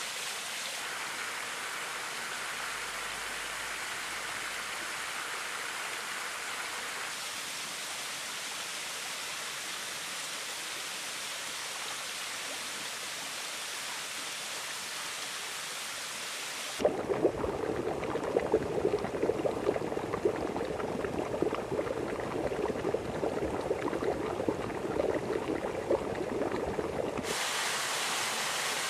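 Warm thermal spring water running: a steady, bright rush of water sheeting over rock. A little past halfway it changes to a louder, choppier, lower-pitched splashing for about ten seconds. Near the end it gives way to the even rush of a waterfall falling into a pool.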